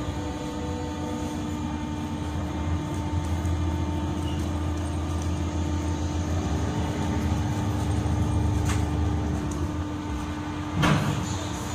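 Passenger ferry's engines droning steadily as heard inside the cabin, a constant hum over a low rumble that swells a little in the middle.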